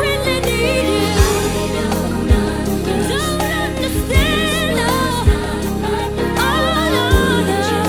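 R&B song played from a vinyl record: a woman's lead vocal with vibrato and layered backing harmonies over bass and a kick drum that lands about once a second.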